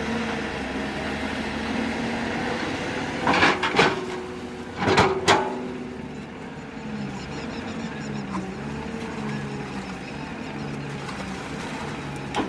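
Hyundai Robex 210-7 excavator's diesel engine running steadily, with a few loud sharp clanks about three and five seconds in; after that the engine pitch drops lower and wavers.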